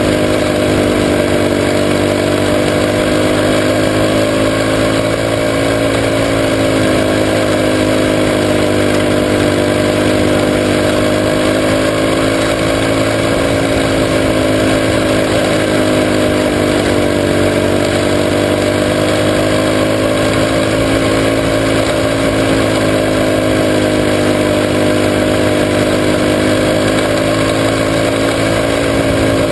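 Junior sprint car engine running hard at racing speed, heard from the camera mounted on the car itself, its pitch rising and falling as it goes round the dirt oval.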